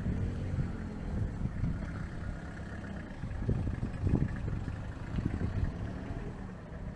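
A car running, heard as a steady low rumble of engine and road noise.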